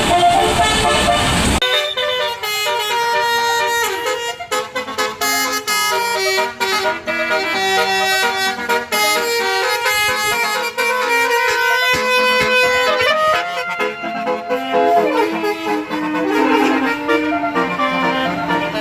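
Outdoor vehicle noise with horn tones for about the first second and a half. Then a sudden cut to a clean, loud tune of stepped notes in several voices at once, with a few brief dropouts.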